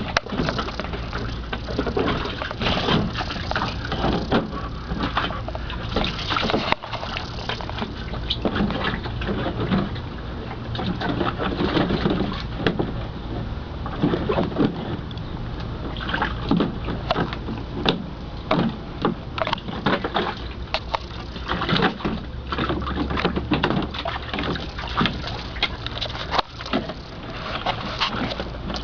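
Mastiff–Rhodesian ridgeback puppy with its muzzle in a shallow plastic kiddie pool, splashing, lapping and biting at the water in a quick, irregular run of sloshes and splashes.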